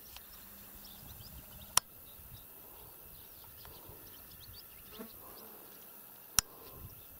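Swallows twittering faintly as they skim low over a pond: scattered short high chirps. Two sharp clicks stand out above them, one about two seconds in and one near the end.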